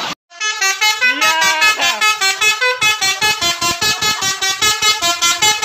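Basuri telolet multi-tone bus horn playing a fast melody, its tones changing pitch and pulsing about four times a second after a brief gap at the start.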